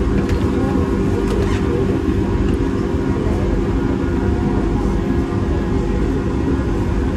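Doha Metro train running, heard from inside the carriage: a steady low rumble with a constant hum.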